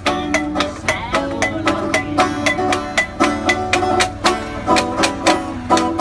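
Banjo and washboard playing a country tune together: bright plucked banjo notes over a steady beat of washboard scrapes and taps, about four a second.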